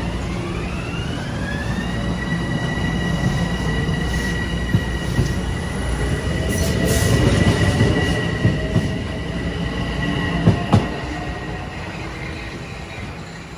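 Metro-North electric multiple-unit train running through on the rails, a low rumble of wheels under a motor whine that rises in pitch over the first two seconds and then holds steady. A sharp clack comes about ten and a half seconds in.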